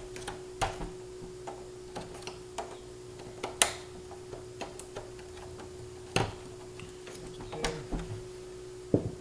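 Wire-harness clips being worked loose from a truck grille, giving scattered small clicks and rattles, with sharper snaps about three and a half and six seconds in. A steady faint hum runs underneath.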